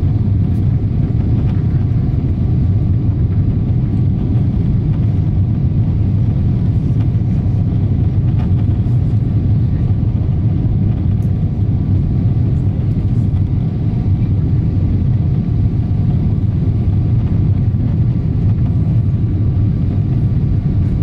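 Steady cabin roar inside a Boeing 777-200 climbing out after takeoff: engine and airflow noise, heaviest in the low rumble, with a faint steady high tone above it.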